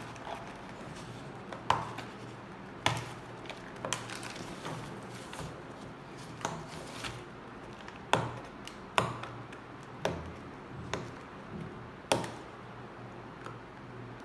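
Sealed earphone packaging box being opened and its contents handled: a series of sharp taps and clicks about a second apart, with light rustling of packaging between them.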